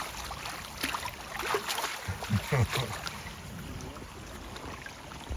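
River water running steadily, with some splashing and a couple of short low voice sounds about two seconds in.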